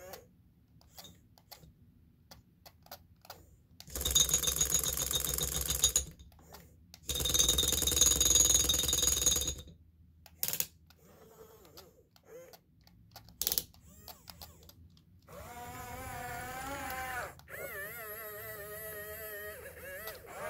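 Double E 561 RC excavator's electric gear motors: a few light clicks, then two loud grinding whirs of about two seconds each as the arm and bucket move. From about fifteen seconds in, a buzzing whine that wavers in pitch as it drives forward on its tracks.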